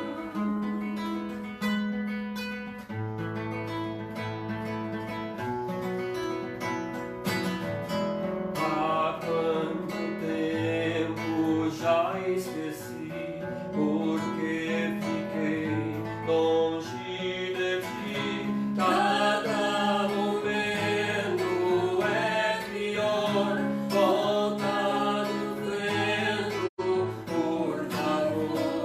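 Acoustic guitar accompanying a voice singing a slow Portuguese song, live music with no talking; the singing stands out more from about nine seconds in.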